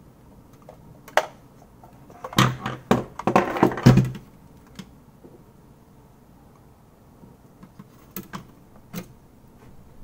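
Keychron K4 keyboard's plastic case and circuit board handled and set down on a desk: a light click, then a cluster of plastic knocks and thumps a couple of seconds in, followed by a few scattered light clicks.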